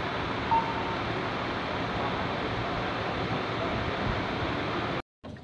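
Steady rushing roar of an F-15C Eagle's jet engines running at idle on the flight line, cutting off abruptly about five seconds in.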